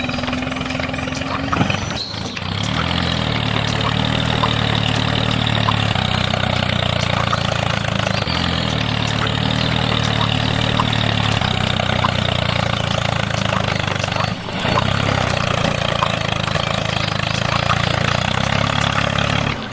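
Small motor of a miniature DIY tractor running steadily, broken by two brief drops: one about two seconds in, one near the three-quarter mark.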